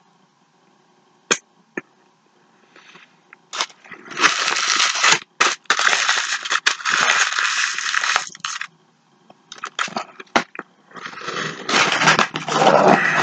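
A fast-food sandwich being bitten and chewed close to the microphone, its paper wrapper crinkling: a few faint clicks, then two long stretches of loud crackling and rustling, one starting about four seconds in and another near the end.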